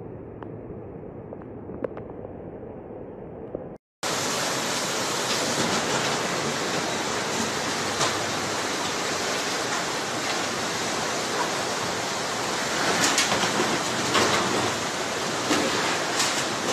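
Muddy flash-flood water rushing in a steady torrent. For about the first four seconds the rush is duller, with a few sharp clicks. Then the sound drops out for a moment and a louder, fuller rush of floodwater begins.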